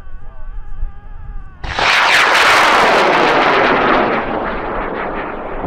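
High-power rocket motor lighting and lifting off: a sudden loud rush of noise about one and a half seconds in, sweeping down in pitch and slowly fading as the rocket climbs away.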